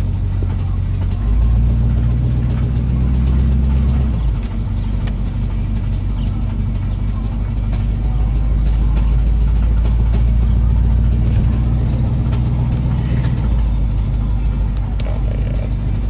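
1985 Chevy Silverado's 305 small-block V8 running under way, with a knock in the engine. The engine sound gets louder about a second in, drops back at about four seconds, builds again and eases off a few seconds before the end.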